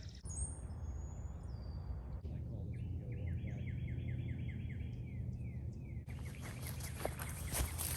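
Woodland birds calling and singing: a few high whistled notes, then one bird repeating a short falling note about five times a second for several seconds.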